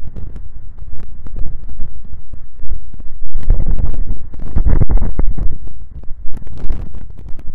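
Road-video audio slowed down about tenfold: a dense, loud, low rumble with many sharp clicks from looping and cutting, strongest around the middle.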